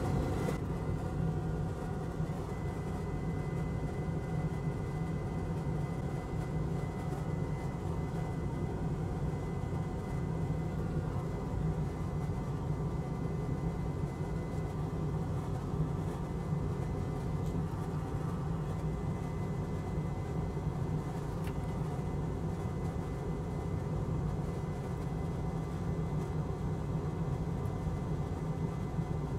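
Steady low machine hum that does not change, with a faint high whine above it from about two seconds in.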